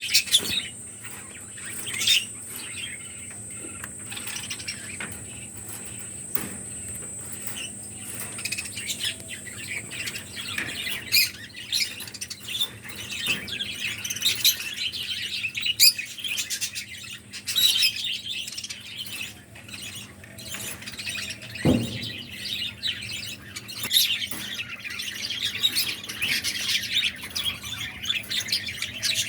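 Cockatiels chirping repeatedly with many small clicks. A sharp knock comes about three-quarters of the way through. A steady high whine fades out about a third of the way in.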